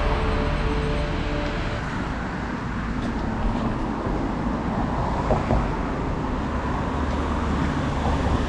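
Steady rushing roar of the river and waterfall, an even noise with a deep rumble. A few faint music notes fade out in the first two seconds.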